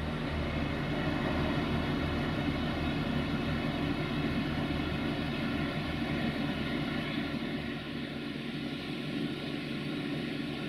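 Steady drone of a railway engine with an uneven low throbbing underneath.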